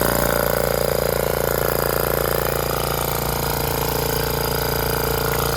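Restored Craftsman oilless piston sprayer running: its motor-driven piston pump makes a loud, steady hum.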